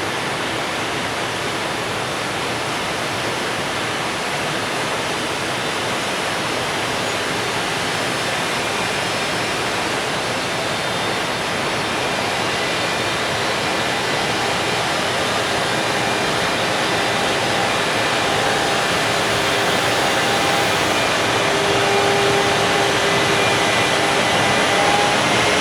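Container freight train behind an EF510 electric locomotive pulling out, a steady rolling rush of noise that slowly grows louder. In the last few seconds a whine joins it and rises in pitch as the train picks up speed.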